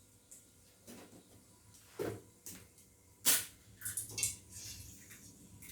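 Kitchen utensils and pans being handled for frying eggs: a few scattered light clinks and knocks, the loudest about three seconds in.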